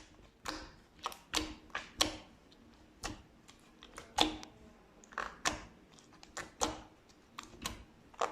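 Slime being squeezed and worked by hand, giving a run of sharp, irregular clicking pops, roughly two a second.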